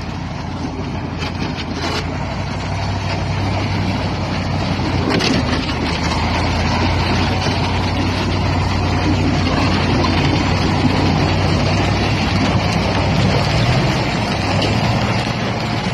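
KamAZ truck's diesel engine running steadily under load while its wheels churn through slush and broken ice. The engine grows louder over the first few seconds, with a few sharp knocks in the first seconds.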